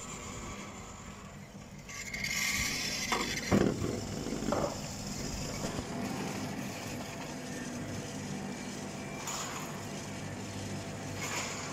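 Fixed-grip double chairlift running: a steady mechanical hum that swells into a rumble about two seconds in, with two short clunks a second apart soon after.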